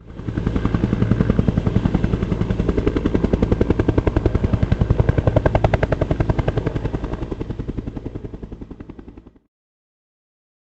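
Helicopter rotor blades beating in a rapid, steady thudding rhythm, fading out over the last couple of seconds and stopping about nine and a half seconds in.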